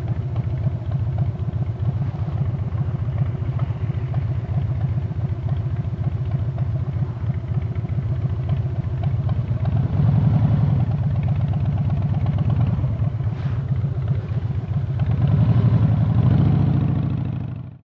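Harley-Davidson V-twin engine idling with a fast, uneven low pulse while stopped in traffic. It grows louder about ten seconds in and again near the end as the bike pulls away, then cuts off suddenly.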